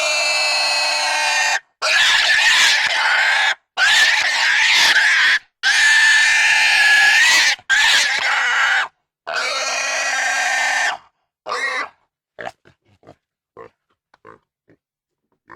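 Pigs squealing: a run of long, loud, high-pitched squeals, each one to two seconds, with short breaks between them. After about twelve seconds only a few short, faint grunts remain.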